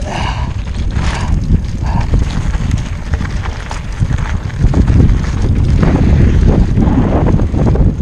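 Mountain bike rolling fast down a rocky dirt trail: tyres crunching over loose stones and the bike rattling and clattering over the bumps, getting louder about halfway through.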